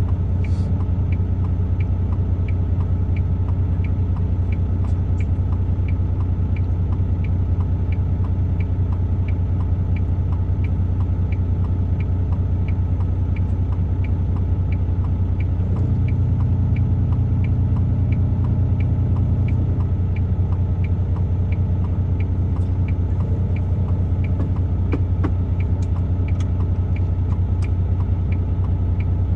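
Truck engine running steadily, its note stepping up a little about halfway through. A light, regular tick sounds about one and a half times a second over the engine.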